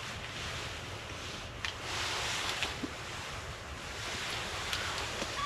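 Wind blowing through the bare woods, a rushing hiss that swells and eases every couple of seconds, with a few faint clicks.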